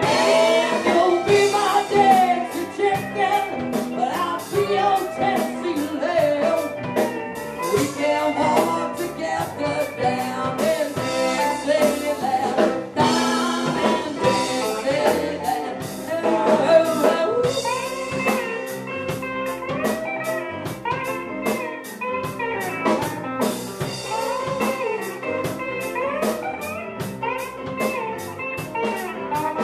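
Live band playing a bluesy rock song, with electric guitar, drum kit and singing.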